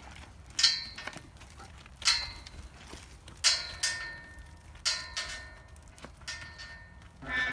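Sharp metallic clanks with a short ringing tail, seven of them at a steady pace of about one every second and a half, as a steel pipe corral gate is worked from the back of a walking horse.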